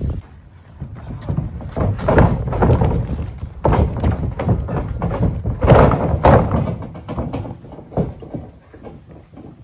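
A quick series of thuds and bumps as wrestlers grapple and hit the padded mat of a backyard wrestling ring, loudest a little after the middle.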